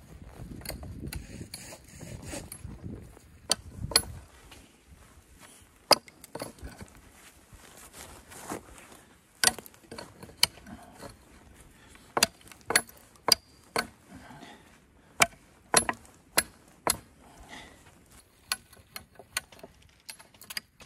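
Hatchet chopping at the base of a thin sapling: a long string of sharp wooden blows, irregularly spaced and often in quick runs, starting about three seconds in and getting lighter near the end.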